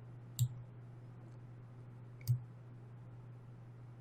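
Two single computer mouse clicks, about two seconds apart, over a steady low electrical hum.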